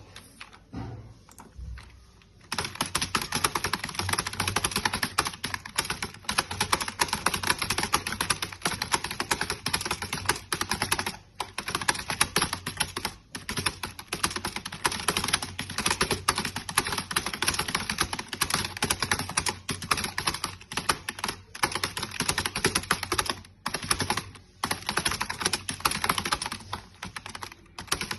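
Fast touch typing on a computer keyboard at about 100 words per minute: a dense, continuous stream of key clicks that starts about two and a half seconds in, broken by a few brief pauses.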